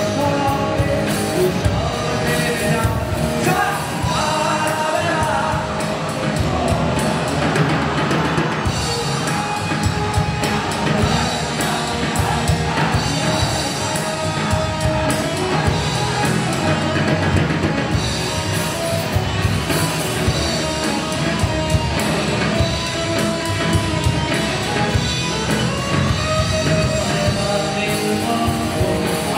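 Live rock band playing: electric guitars and bass over a steady drum beat, with a man singing into a microphone.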